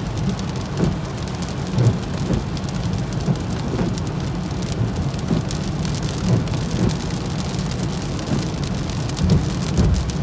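Heavy rain pelting a car's windshield and roof, heard from inside the moving car over a steady low road rumble, with irregular dull knocks about once a second.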